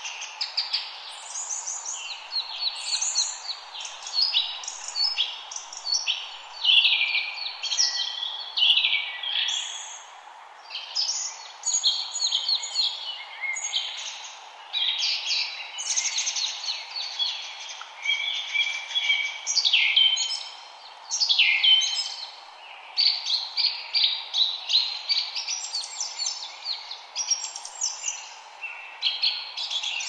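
A wren singing long, fast songs of high trills and twittering notes, phrase after phrase with short pauses, over a steady background hiss.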